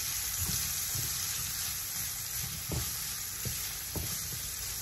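Chicken sausage pieces and chopped green chillies and capsicum sizzling as they stir-fry on high heat in a nonstick pan, moved about by a silicone spatula that knocks against the pan a few times.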